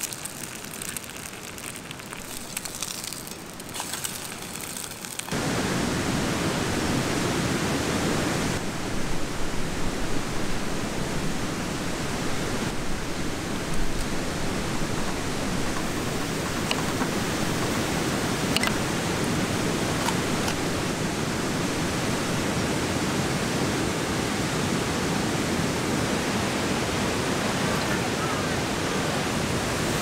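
An egg frying in oil in a pan, a quiet sizzle for about five seconds. Then a sudden switch to the loud, steady rushing of a stream, with a few faint ticks.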